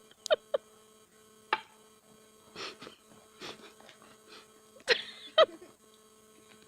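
A steady electrical hum with a few sharp knocks and brief rustles over it, the loudest knocks near the start and about five seconds in.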